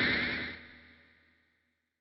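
A slowly rising tone with a higher overtone, like an outro sound effect, fading away over the first second, then dead silence.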